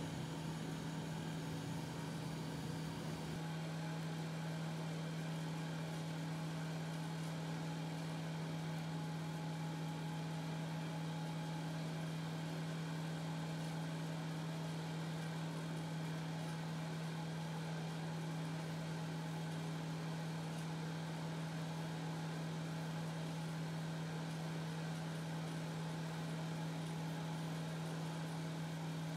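A steady low hum from a running motor, holding one constant pitch without change.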